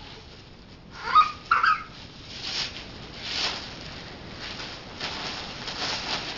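Two short, high vocal squeaks about a second in, then plastic bubble wrap crinkling and rustling as it is handled, without popping.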